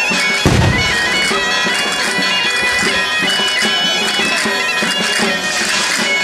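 Asturian bagpipe (gaita) playing a melody over its steady drone, with a single low thump about half a second in.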